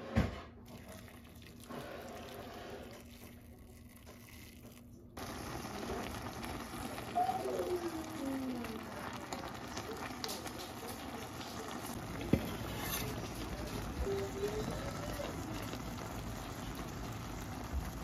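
Siraegi (dried radish greens) simmering in broth in an enamelled cast-iron pot, a steady bubbling hiss that starts suddenly about five seconds in. A sharp knock right at the start and another short knock around twelve seconds in.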